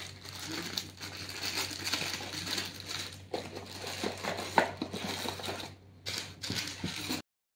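Plastic packaging bag crinkling and a cardboard box being handled and set down, irregular rustling with a few light knocks. The sound stops abruptly shortly before the end.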